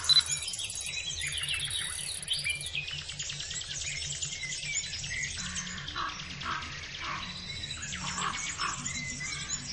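Background music with bird chirps and tweets running over it.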